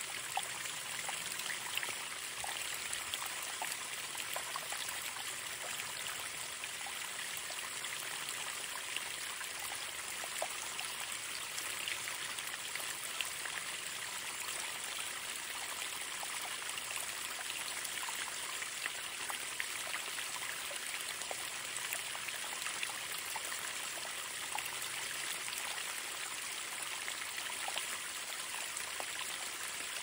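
Water running steadily over a waterfall: an even rushing with many small splashes.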